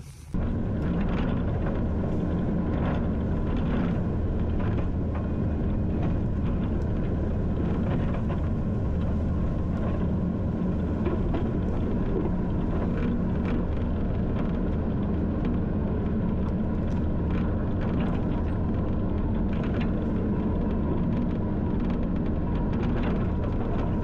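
Skid steer's diesel engine running steadily at an even speed, with a few faint knocks here and there.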